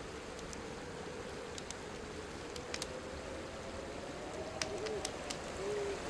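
Two short, low owl hoots near the end, over a steady hiss of woodland ambience with a faint held hum and a few soft clicks.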